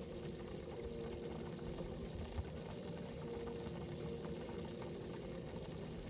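Boat motor running steadily with a low, even hum and a faint held tone.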